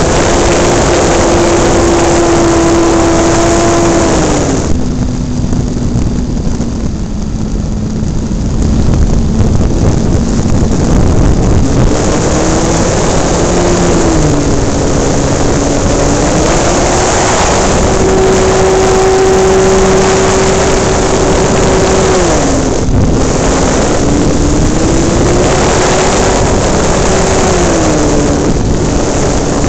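Radio-controlled airplane's motor heard from on board in flight, its drone changing pitch with the throttle. It drops to a lower, quieter tone for a few seconds about five seconds in, then rises and shifts up and down again, with a brief dip a little past twenty-two seconds. Constant wind rush on the microphone underneath.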